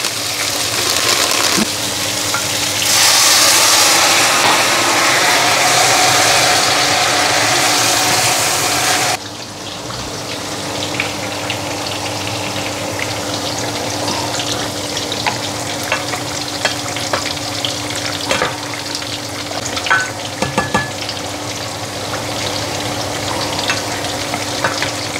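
Food sizzling in a hot pan as it is stir-fried: a loud, dense frying hiss for about nine seconds that then drops abruptly to a quieter sizzle, with light scrapes and clicks of a utensil stirring in the pan.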